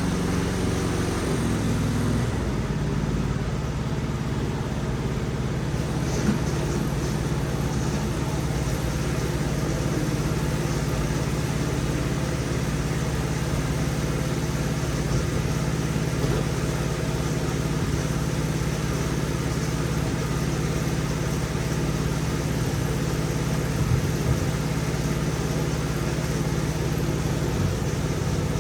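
Lawn mower engine running steadily during mowing, with a slight change in pitch about two seconds in.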